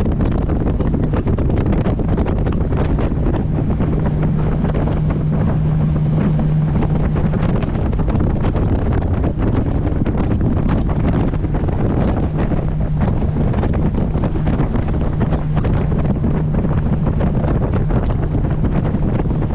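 Loud wind buffeting the microphone on a moving boat, over the steady drone of the boat's engine and rushing water.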